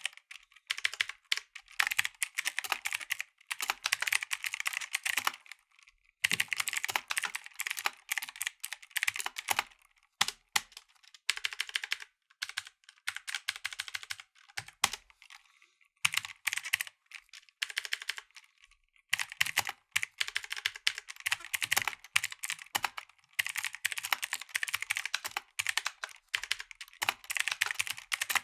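Typing on a mechanical keyboard with blue (clicky) switches: rapid runs of sharp key clicks in bursts of a few seconds, with brief pauses between them.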